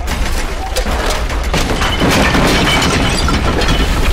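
Earthquake collapse sound effects for a simulated room: a steady low rumble under a continuous clatter of crashing, breaking blocks and splintering wood, loudest from about two seconds in as the stone chimney comes down.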